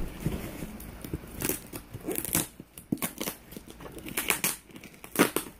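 Crinkling, rustling and scratching of a shipping package being picked and pried open with tweezers, in irregular sharp ticks and scrapes.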